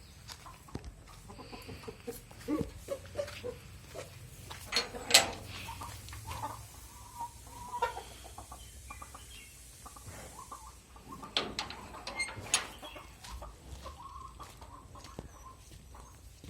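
Livestock shed sounds: scattered knocks and clatters, the sharpest about five seconds in, with a few short animal calls in between.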